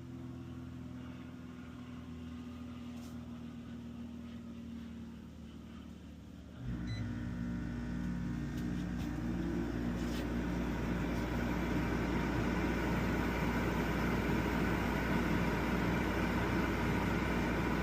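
Coleman Mach rooftop RV air conditioner running its fan alone, a steady hum; about six and a half seconds in the compressor kicks on with a sudden jump to a louder, fuller hum that keeps building. This is a start without a soft start, the draw jumping to about 1,000 watts.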